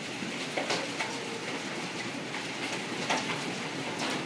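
Hail storm: a dense, steady hiss of hail and rain falling, with sharp clicks of single hailstones striking hard surfaces, several of them about a second apart.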